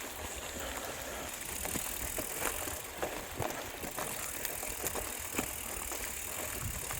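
Bicycle in motion: rolling noise with a low rumble and irregular rattling clicks from the bike over the road surface.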